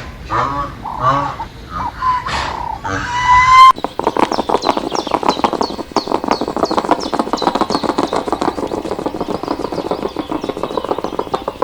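Farm animal calls: a few short calls that bend in pitch. Then, after an abrupt cut a little under four seconds in, a flock of farm birds chatters densely and fast, with quick high chirps over it.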